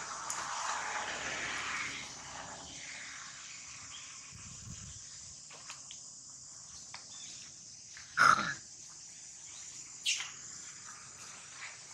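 A steady high insect drone, with a short, loud monkey call about eight seconds in and a fainter call about two seconds later.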